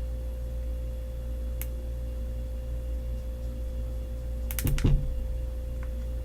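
A steady low electrical hum with a faint tone above it, a single light click early on, and a quick cluster of sharp clicks ending in a knock about three-quarters of the way through, which is the loudest moment.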